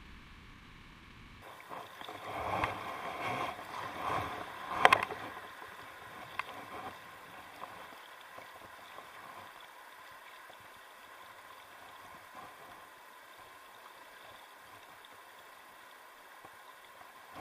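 Water sloshing and splashing for a few seconds, with one sharp knock in the middle of it, then a steady faint rush of water.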